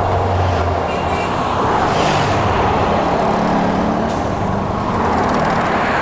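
Road traffic noise: the steady rush of vehicle engines and tyres, swelling and fading every couple of seconds.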